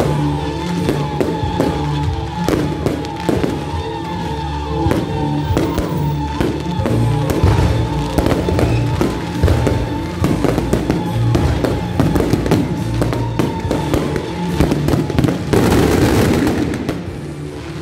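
Aerial fireworks going off in quick, irregular succession of bangs, with music playing underneath. Near the end a dense crackling burst lasts a second or two.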